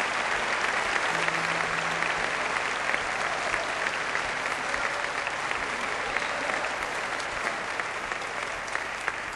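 Large concert audience applauding, the clapping slowly dying down.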